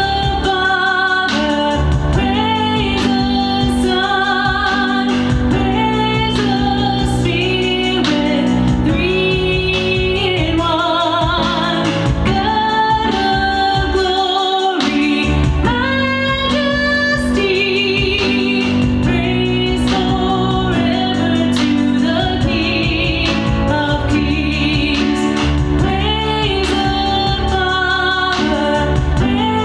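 A woman singing solo into a microphone, with vibrato on held notes, over a steady instrumental accompaniment.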